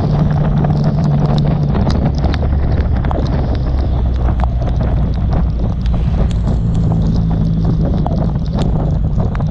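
Motorcycle engine running at a steady highway cruise under heavy wind rush, muffled through a sealed action-camera case. Many sharp ticks are scattered throughout: rain striking the camera case.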